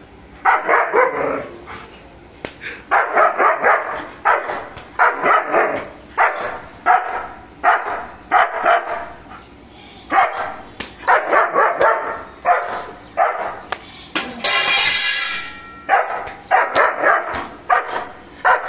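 German shepherd barking aggressively in repeated volleys of several quick barks with short pauses between, guarding its home. About two-thirds of the way through the barks give way to one longer held sound before the barking starts again.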